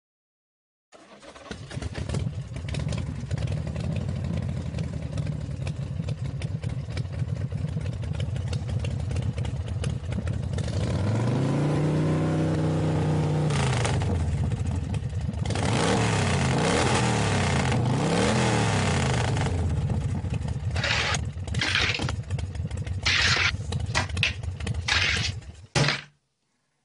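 Engine running steadily, then revving with its pitch rising and falling in swoops in the middle and a run of short loud bursts near the end, stopping suddenly. It plays as the sound effect for a toy aeroplane flying.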